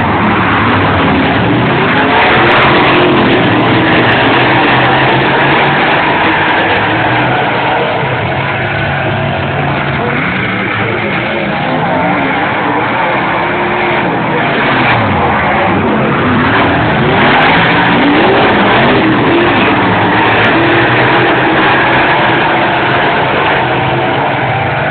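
A pack of dirt-track race cars running loud and flat out around the oval. Their engines rise and fall in pitch every few seconds as the cars pass and go through the turns.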